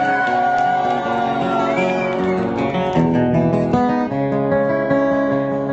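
Guitars playing a song, a strummed acoustic guitar most prominent, with a few sliding notes in the first couple of seconds.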